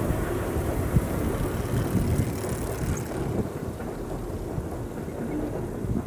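Low, uneven rumble of a commuter train crossing a bridge, easing off a little after about halfway, mixed with wind buffeting the microphone.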